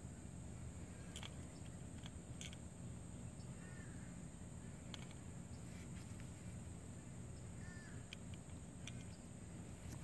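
Faint background ambience: a steady low rumble and a steady high hiss, with a few faint ticks and two faint short calls about four and eight seconds in.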